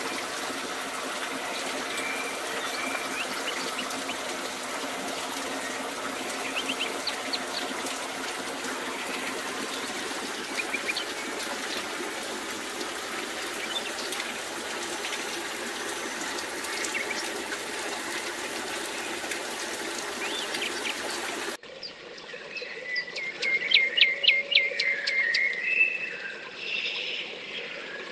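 Water falling from a sandstone overhang splashing steadily into a shallow muddy pool, with faint bird chirps over it. About three-quarters of the way through, the sound cuts abruptly to a quieter wood where a songbird sings loud, quick runs of notes.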